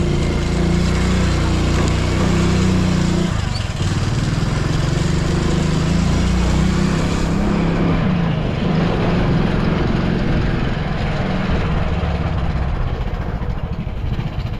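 Small motorcycle engine running at low speed through a lane, with wind rushing over the microphone. The engine note drops about three and a half seconds in, picks up again, and eases off at the end as the bike slows.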